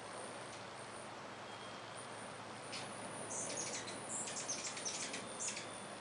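Hummingbirds giving a quick run of sharp, very high squeaky chips and twitters, clustered from about three seconds in to near the end, over a steady hiss.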